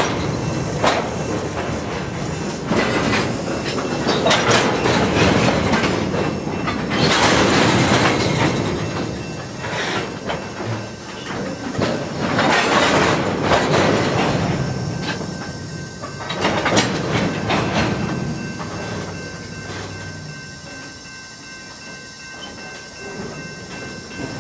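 Freight train cars (tank cars and covered hoppers) rolling past, their wheels clattering in loud surges every few seconds. The sound fades over the last several seconds as the end of the train goes by.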